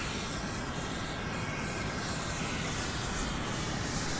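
White Ultralux Breslauer Feuer magnesium ground flare (Bengal fire) burning with a steady, even hiss.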